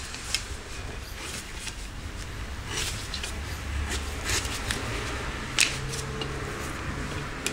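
Shoemaker's knife cutting leather against a glass cutting plate: several short, scratchy strokes, the sharpest about five and a half seconds in, with the leather sliding and rustling between them.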